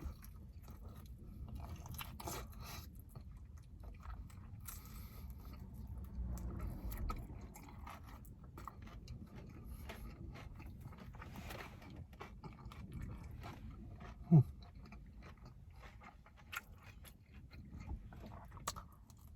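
Close-up chewing and biting on sticky glazed fried chicken wings: irregular crunches and mouth clicks over a steady low rumble. About fourteen seconds in comes a brief, loud low sound that falls in pitch.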